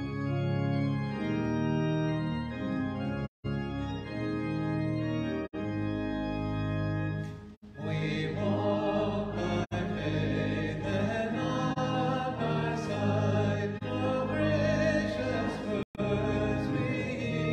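Church organ playing a hymn introduction in held chords, then about eight seconds in the congregation joins in singing the hymn with the organ. The sound drops out for an instant three times.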